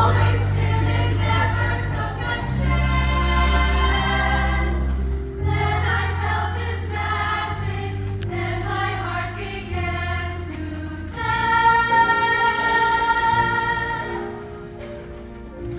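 High school chamber choir singing a Broadway show-tune medley over low held accompaniment notes. A long held chord about eleven seconds in fades away near the end.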